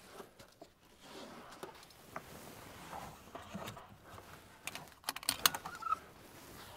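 Hands fastening the gyro camera unit down on its helicopter seat mount: rustling and scattered clicks of straps and fittings, with a quick run of sharp clicks about five seconds in.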